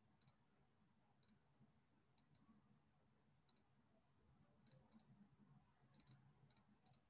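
Near silence: room tone with faint, scattered high-pitched ticks, more of them in the second half.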